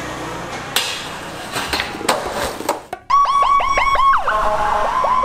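Skateboard rolling with a few sharp clacks and knocks for about three seconds. Then music cuts in abruptly: a rapid run of short, repeated falling electronic chirps, with one downward sweep partway through.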